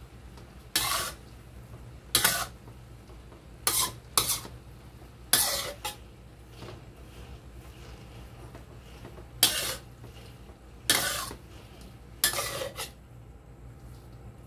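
Metal spatula scraping against a wok while tossing and stirring stir-fried rice vermicelli: about eight short scrapes at irregular intervals, over a low steady hum.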